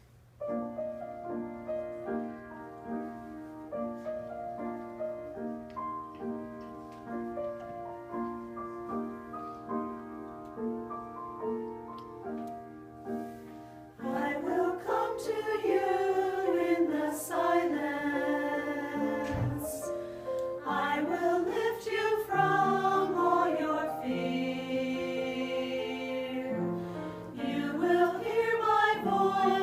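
Choir performance with keyboard accompaniment: the keyboard plays an introduction of steady chords alone for about the first half, then the choir's voices come in singing over it.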